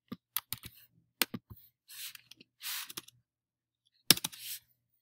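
Computer keyboard keys and mouse clicks used to copy and paste code: a scattering of sharp single clicks in the first second and a half, and a quick cluster of clicks about four seconds in. Two short stretches of soft hiss come in between.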